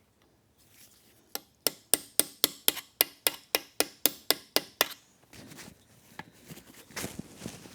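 An even run of sharp metallic clicks, about four a second for roughly three seconds, from a hand tool working the tight oil pump fastener loose on an Aermacchi big bore motorcycle engine. Softer handling noise follows.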